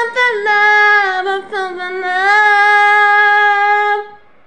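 A woman singing long held notes that slide and bend in pitch, stopping about four seconds in.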